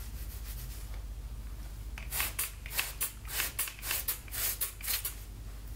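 Plastic trigger spray bottle spritzing water onto wet hair: a quick run of short hissing sprays, about three a second, starting some two seconds in and lasting about three seconds.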